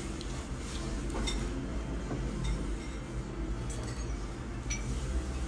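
Restaurant dining-room sound: a steady low hum with a few light clinks of dishes and cutlery spread through it.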